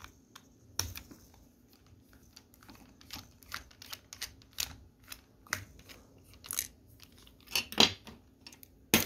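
Small screwdriver turning out a screw inside a plastic remote control's battery compartment: irregular light clicks and scrapes of the tip and plastic, with a couple of louder clicks near the end.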